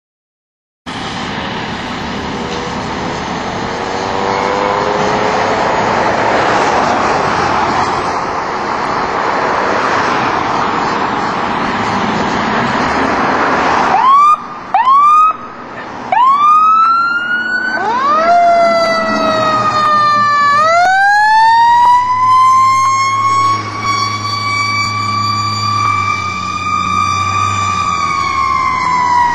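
Fire engine siren on a pumper leaving on an emergency call. A steady noisy rumble comes first; about halfway the siren gives several short rising whoops. It then winds up into a long wail that holds high and begins to wind down near the end.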